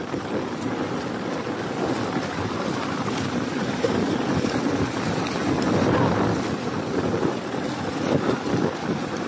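Water splashing and churning as a dense school of milkfish thrashes at the surface inside a netted fish pen, with wind buffeting the microphone.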